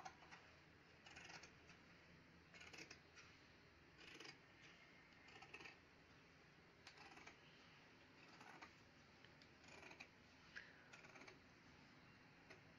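Faint snips of fabric scissors cutting through cloth, one every second or so, some in quick pairs.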